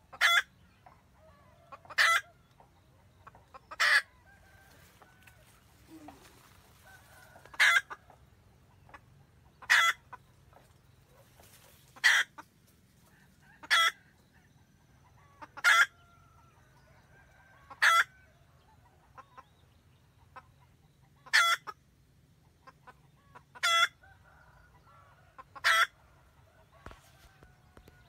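Red junglefowl hen cackling to call a rooster: a short, loud call about every two seconds, with softer clucks in between.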